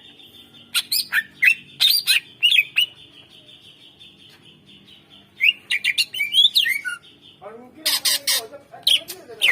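Greater green leafbird (cucak ijo) calling in sharp, harsh bursts of quick gliding notes. It gives three clusters with short pauses between them.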